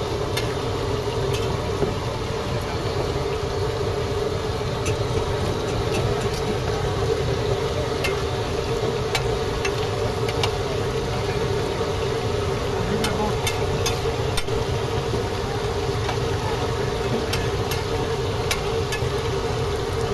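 Stir-frying at a street-food stall: a steady low rumble and sizzle, with scattered sharp clicks of a metal spatula against the pan.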